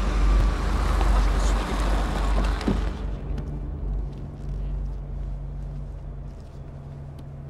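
An Audi saloon's engine and tyres as it slows and pulls up to the kerb, with a single knock about two and a half seconds in. The sound then drops to a quieter, steady engine hum heard from inside the car, with a few faint clicks.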